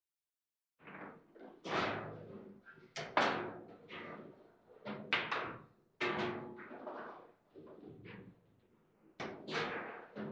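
Irregular sharp knocks and bangs from a foosball table: the ball being struck by the plastic figures and the rods clunking against the table. The hits come in ones and close pairs, each ringing briefly, with a quieter spell about two thirds of the way in.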